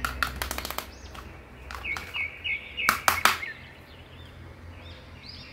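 Hard plastic action figure clicking and knocking as its jointed limbs are handled, in sharp clicks near the start, around two seconds and around three seconds in. A run of short high chirps sits between the clicks, with a few more near the end.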